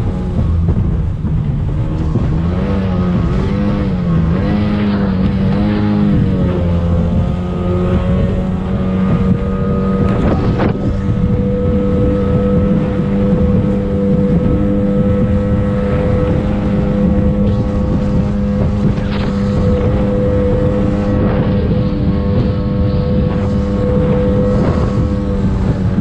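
Racing speedboat's engine running hard, its pitch wavering up and down for the first six seconds as the revs change, then holding steady, over a constant rush of wind and water. A few brief knocks, the clearest about ten seconds in.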